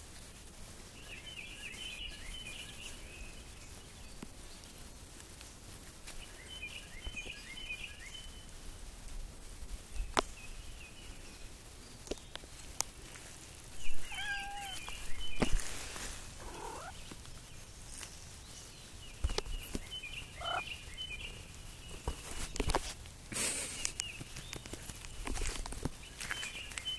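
A cat meowing a few times around the middle, the loudest sounds here, while a songbird repeats a short trilled phrase every few seconds in the background. A few sharp knocks are scattered through.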